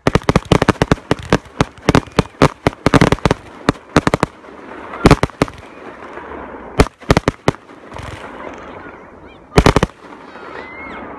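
Fireworks going off in a rapid volley: a dense string of sharp bangs with crackling between them as comets and shells launch and burst. The bangs come in clusters, thin out after about four seconds, and end with a last loud group about ten seconds in.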